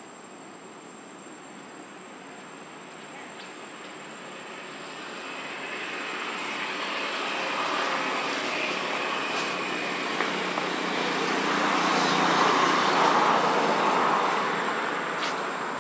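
A distant engine passing by: a broad rushing noise that builds over several seconds, peaks, and fades near the end, over a steady high insect trill.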